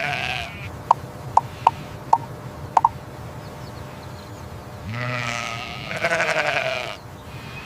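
Sheep bleating: a short bleat right at the start and a long, drawn-out bleat about five seconds in, with a few short sharp ticks between them.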